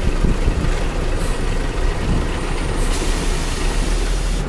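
Scania R420 tractor unit's diesel engine running at low revs. About three seconds in, a loud hiss of compressed air being released sets in over the engine.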